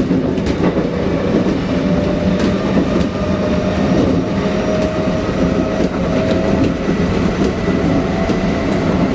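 Kintetsu 1252 series VVVF electric train running between stations, heard from inside the car: a steady rumble of wheels on rail, scattered clicks of the rail joints and a faint whine.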